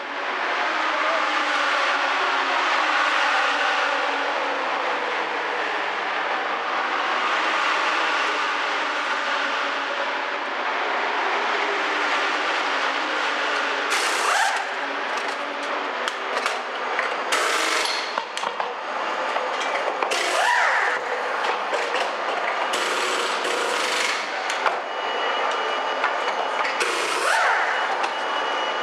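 Pneumatic wheel guns of a race-car pit crew firing in short sharp bursts from about halfway on, undoing and tightening the wheel nuts during a tyre change. Under them runs a steady engine din.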